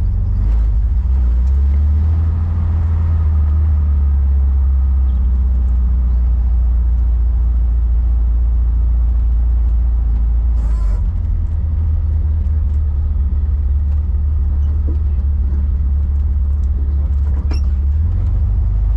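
Car driving along, its engine and road noise making a steady low drone. A brief, sharper noise cuts in about eleven seconds in.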